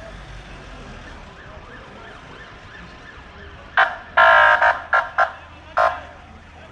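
Low rumble of passing ambulances, then about four seconds in an ambulance siren gives a burst of loud short blasts, one held for about half a second.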